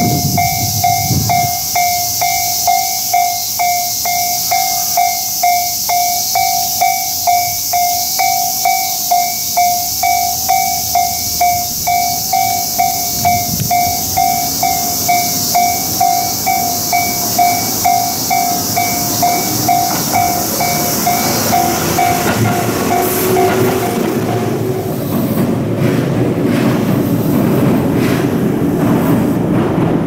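Japanese level-crossing warning bell ringing "kan-kan-kan", about two strokes a second, then stopping a little over twenty seconds in. After it stops, a Tobu 8000-series two-car electric train runs past on the rails.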